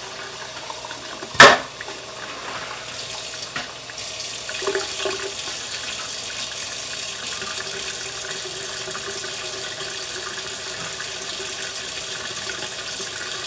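Kitchen faucet running steadily into a stainless steel sink. A single sharp knock about a second and a half in is the loudest sound.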